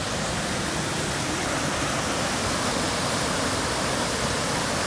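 Waterfall rushing steadily over rocks.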